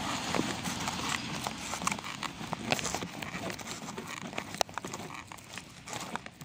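Footsteps on snow-covered ground: a run of short, irregular steps.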